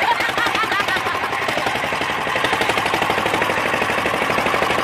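A small wooden boat's engine running steadily underway, a fast, even chugging of firing pulses.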